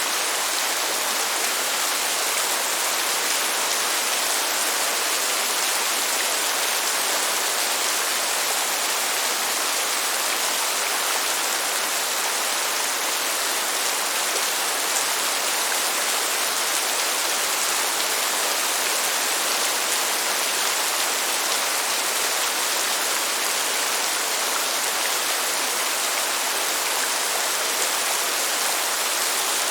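Heavy rain downpour, a dense steady hiss of rain falling on surfaces that holds at one level throughout.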